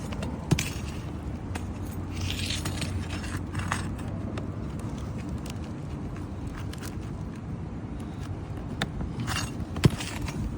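Metal roofing tool prying and scraping under old asphalt 3-tab shingles, with a couple of sharp knocks, one about half a second in and one near the end, over a steady low rumble.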